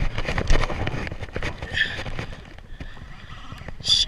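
Wind buffeting a microphone mounted right at a Shimano Ocea Jigger conventional reel, with irregular knocks and clicks as the rod and reel are worked and cranked during jigging. A short high squeak comes about two seconds in and again near the end.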